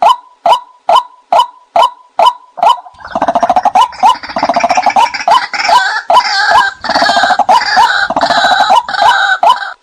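White-breasted waterhen calls played as a bird-trapping lure recording: short, evenly spaced 'kwak' notes about two a second, breaking about three seconds in into a denser, harsher run of overlapping calls that lasts most of the rest, before the even notes return near the end.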